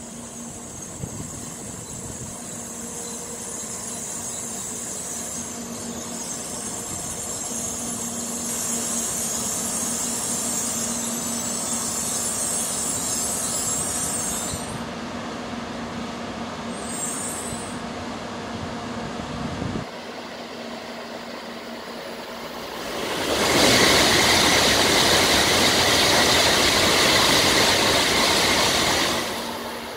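N700-series Shinkansen trains. For the first twenty seconds a train moves slowly alongside the platform, with a steady low motor hum and a high brake squeal, and this sound stops abruptly. About 23 s in, another train runs past on the near track at speed: a loud, even wind and wheel noise that lasts about six seconds.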